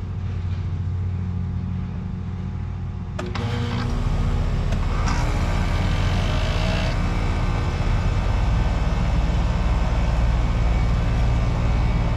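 Carrier heat pump outdoor unit switched back on after a new capacitor was fitted: a click about three seconds in, then the compressor and condenser fan start up and run with a steady, louder hum over a low hum already present.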